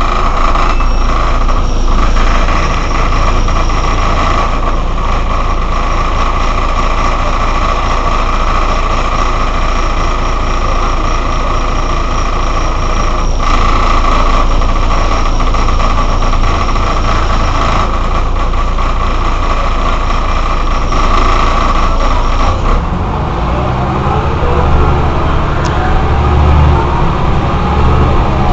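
Mercedes-Benz O 405 N city bus's rear-mounted engine running at a standstill, loud and steady, with a high whine over the engine note. About 23 seconds in the whine stops and the deep engine note grows stronger.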